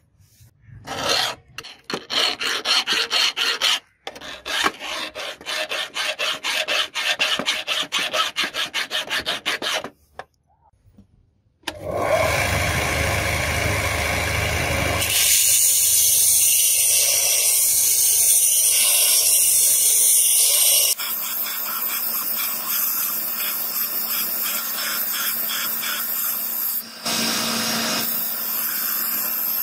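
A long run of quick, even rubbing strokes for about nine seconds. Then an electric belt sander starts up about twelve seconds in and runs steadily, with the steel file pressed flat against its abrasive belt near the end.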